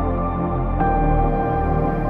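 Calm ambient background music with slow, held notes; a new note comes in about a second in.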